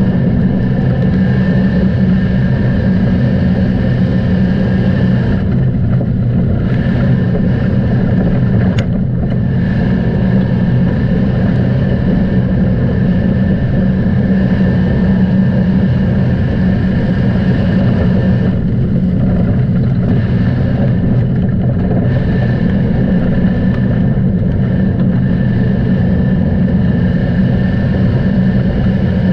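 A motor vehicle's engine running loud and steady, with no clear revving or pauses.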